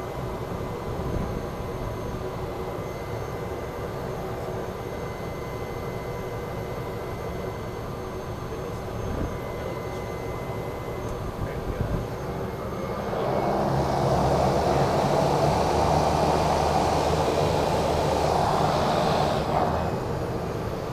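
Cessna Caravan amphibian's PT6A turboprop engine and propeller running steadily at low power while taxiing on water, heard from inside the cockpit. About two-thirds of the way in it grows louder and rougher for some six seconds, then eases off near the end.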